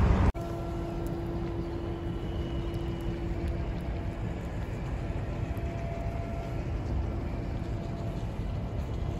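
A moored ship's machinery gives a steady, even hum over a low, unsteady rumble of wind and water.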